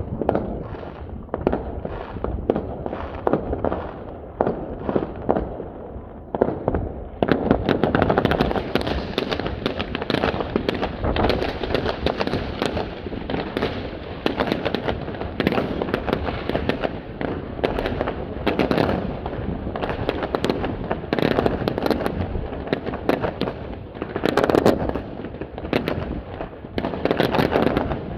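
Many aerial fireworks going off in a continuous rattle of bangs and crackles, growing denser and louder about seven seconds in, with a louder burst about three-quarters of the way through.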